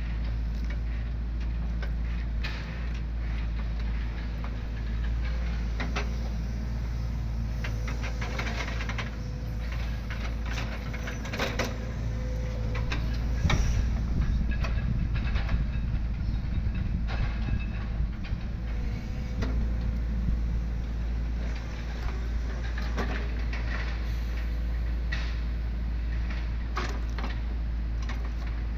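Excavator engine running steadily while its log grapple handles cedar logs, with irregular wooden knocks and clunks as logs are gripped and set down on the truck bed, busiest around the middle.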